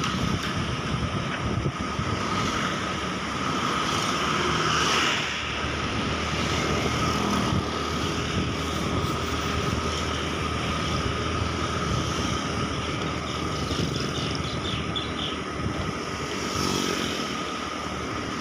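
A motorcycle riding along a road: the engine runs steadily under wind and road noise, with other traffic going by. The sound swells about four seconds in and falls back just after five.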